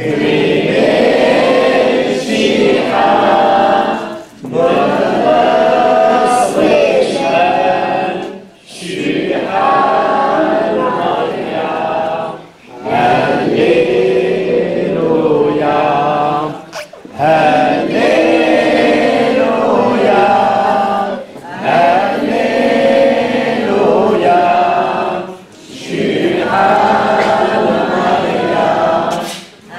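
A choir singing a hymn, in phrases of about four seconds each with short breaks for breath between them.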